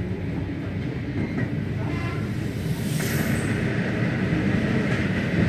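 An electric commuter train running, heard from inside the carriage as a steady rumble. About three seconds in, a train passing on the next track adds a sudden rush of noise and a higher steady tone.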